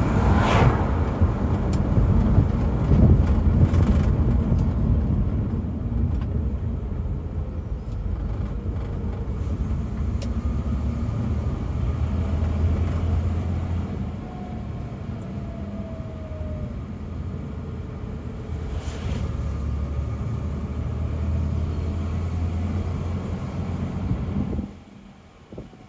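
Inside the cabin of a moving 1964 Mercedes-Benz 220 SB: the straight-six engine running with road and tyre noise, and an oncoming car passing just after the start. The sound drops sharply near the end.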